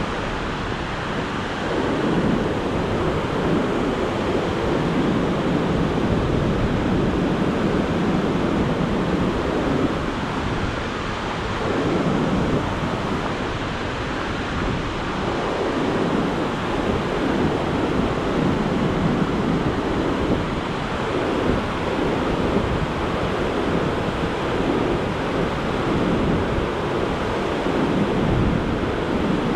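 Whitewater river rushing over granite boulders: the steady, full roar of rapids, swelling and easing slightly every few seconds.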